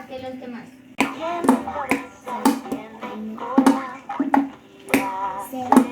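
A child playing a homemade percussion instrument, sharp strikes about two a second, with a child's singing voice holding notes between the strikes.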